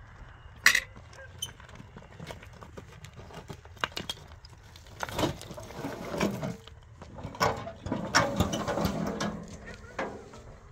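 A metal wheelbarrow being tipped out: a load of earth and stones slides and tumbles onto a rubble pile, with clanks and rattles from the barrow, mostly in the second half. A single sharp knock comes about a second in.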